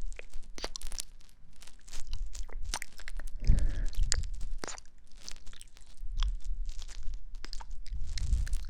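Ear-cleaning sounds on a close microphone: a dense, irregular run of crackly scratches and clicks, with low rubbing thumps underneath.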